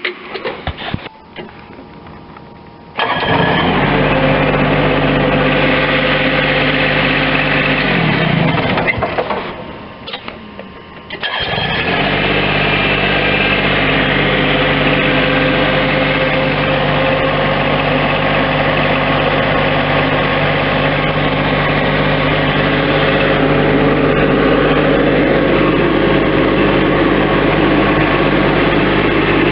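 Bobcat MT-85 stand-on skid steer's diesel engine starting about three seconds in and running, then shutting off and winding down to a stop. It starts again a few seconds later and settles into a steady run.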